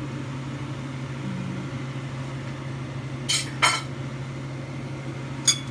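A utensil clinking against a stainless steel pan: two clinks close together about three and a half seconds in, then one sharp clink near the end, over a steady low hum.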